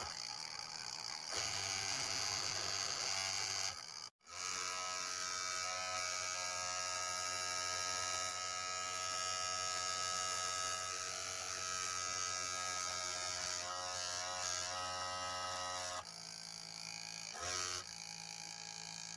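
Two small DC motors coupled shaft to shaft, one driving the other as a homemade generator, run with a steady electric whine and buzz at an unchanging pitch. The sound drops out briefly about four seconds in and is quieter near the end.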